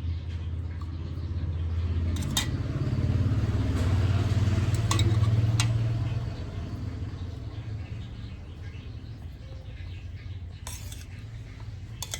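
A motorcycle passing by, its engine rumble swelling to a peak about four to six seconds in and then fading away. A few sharp clinks, like cutlery on a plate, come on top.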